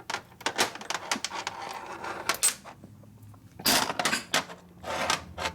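Small loose metal transmission parts clinking and clattering as they are handled and set down, a run of sharp clicks with the loudest clatter a little past halfway.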